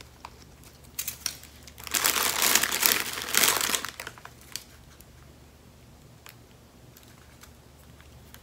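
Clear plastic packaging crinkling for about three seconds as it is handled, loudest in the middle, followed by a few faint light clicks.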